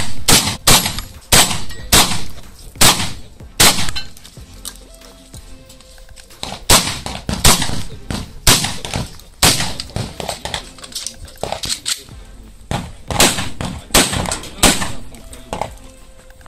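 Gunshots: a string of loud, sharp single shots fired at irregular intervals, sometimes two close together, with a couple of short pauses.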